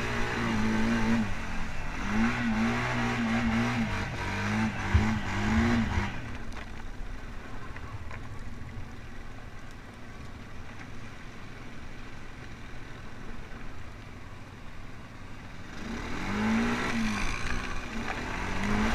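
ATV engine revving up and down in repeated surges while splashing through shallow river water. It then drops to a low, steady run for about ten seconds and revs up again near the end.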